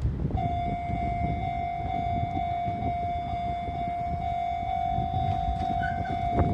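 Japanese railway level-crossing warning alarm starting to ring about half a second in, a steady electronic ringing tone, over wind rumble on the microphone.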